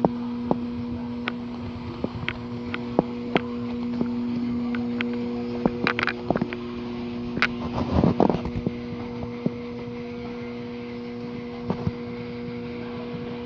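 A steady mechanical hum with a constant pitch, with scattered sharp clicks and knocks over it, bunched most thickly about six and eight seconds in.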